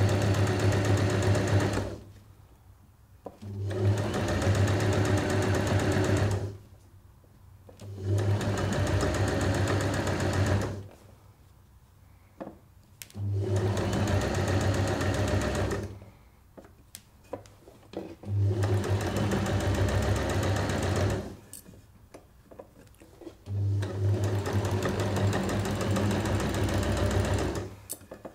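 Electric domestic sewing machine stitching down the edge of a folded strip of fine cotton lawn fabric, in six runs of about three seconds each with short stops between them as the fabric is guided; a few light clicks in the pauses.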